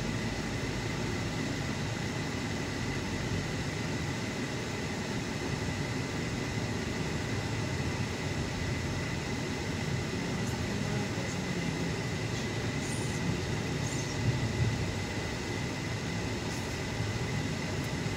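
Steady road and engine noise of a moving car heard from inside the cabin, with a thin steady high whine running under it. A few light taps come about two-thirds of the way through.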